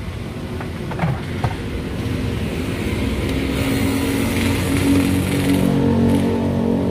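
A motor vehicle's engine running on the street, growing louder over the first few seconds and then holding steady. A couple of light knocks about a second in.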